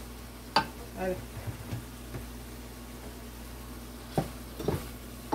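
Wooden spoon stirring stew in a stainless steel sauté pan, knocking against the pan sharply about half a second in and twice near the end, over a faint sizzle from the hot pan.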